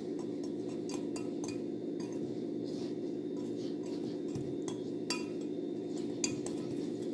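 Metal wire whisk stirring dry flour in a glass measuring bowl, its wires tapping and clinking against the glass at an uneven pace, with sharper clinks about five and six seconds in, over a steady low hum.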